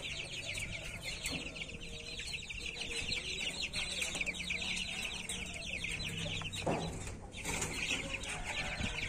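A cage full of young Pama chicks, about one to two months old, cheeping continuously: many short high peeps overlapping.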